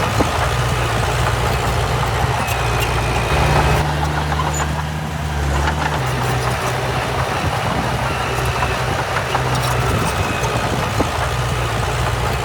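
Heavy diesel engine of earthmoving machinery running steadily, its low drone changing pitch for about two seconds around four seconds in. Faint short high squeaks come every few seconds.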